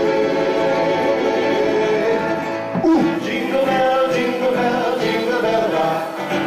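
Live Polynesian dance music: singing with plucked guitar accompaniment. About three seconds in it cuts abruptly to a different song, also with singing.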